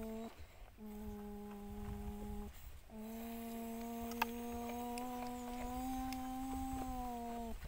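A person humming in long held notes, a mouth-made engine noise for a toy truck. There are three stretches of humming, the last held about four and a half seconds, and a single sharp click about four seconds in.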